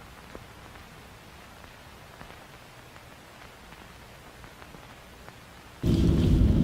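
Faint steady hiss with scattered soft crackles, then about 5.8 s in an abrupt switch to the loud, steady low rumble of road and engine noise inside a moving car's cabin.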